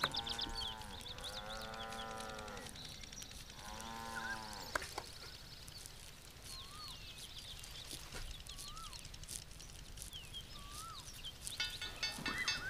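A farm animal bleating three times in the first few seconds, each call drawn out and arching in pitch, followed by faint short chirps.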